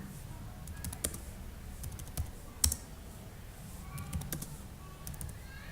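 Computer keyboard typing: irregular keystroke clicks, a few sharper than the rest, over a low steady hum.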